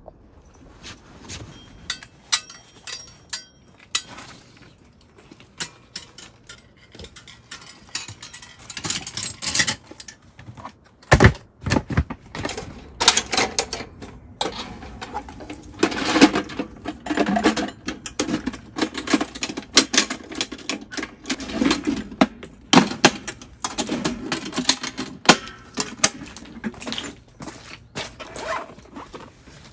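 Irregular clicks, knocks and clatter, as of objects being handled and set down, with stretches of rustling between them.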